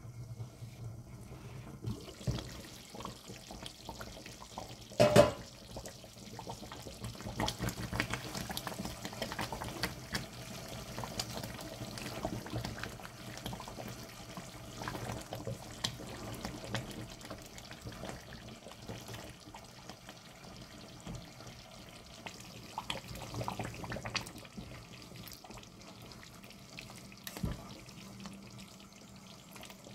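Mutton curry bubbling at a simmer in an open pot while a wooden spatula stirs it, with small scrapes and clicks. About five seconds in, a single loud knock with a short ring as the glass pot lid is set down.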